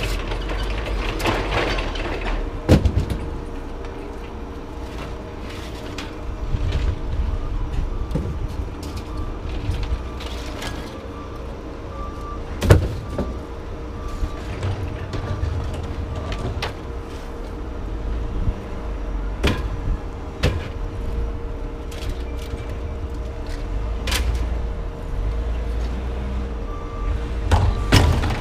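A vehicle engine running with a steady low rumble, with sharp metal clanks every few seconds and a faint repeated beep in the middle and again near the end.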